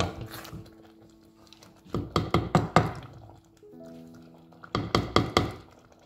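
Wooden spoon knocking against the side of a stainless steel cooking pot while stirring a thick bean stew, in two quick runs of knocks about two and five seconds in. Soft background music with held notes underneath.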